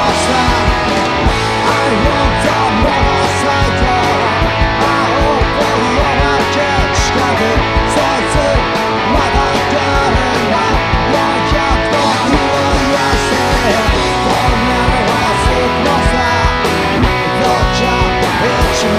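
Electric guitar played along with a fast rock band recording, with drums driving a steady beat throughout.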